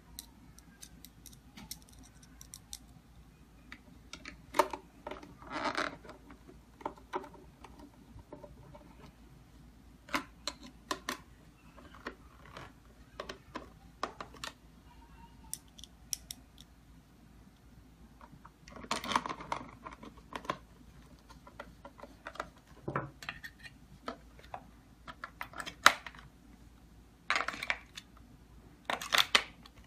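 Irregular clicks, taps and short scrapes of a screwdriver and metal parts as the interior panel of an electronic keypad deadbolt is screwed back on, with AA batteries clicked into its battery holder near the end.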